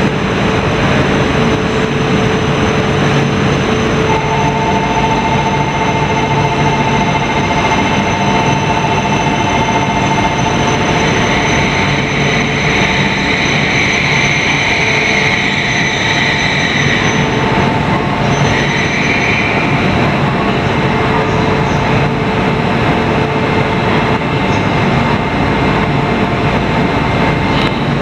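Joetsu Shinkansen Max double-decker bullet train pulling into a station: a steady loud rumble, with two steady whining tones joining about four seconds in and a higher squeal for several seconds around the middle.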